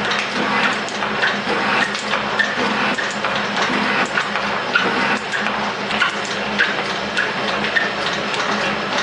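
Metal shaper running, its ram stroking back and forth as the tool cuts a bar, with a short higher note on each stroke, a little under twice a second, over a steady machine hum.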